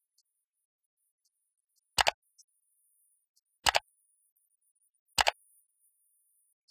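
Three sharp mouse-click pops, each a quick double click, about a second and a half apart over near silence: the sound effects of an on-screen like-and-subscribe button animation.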